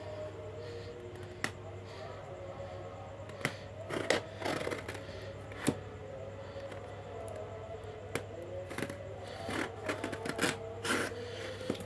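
Scattered clicks and rustles of packaging being handled and opened, with a busier cluster near the end, over a steady low hum.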